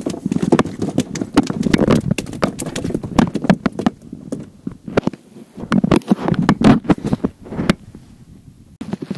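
Irregular knocks, clicks and thumps of handling inside an inflatable boat, with gear and the boat's fittings bumping. The sound thins out near the end.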